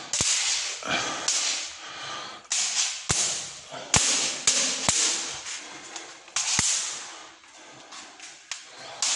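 Aerosol spray can sprayed in a string of short hissing bursts, about ten in all, with a few sharp clicks in between.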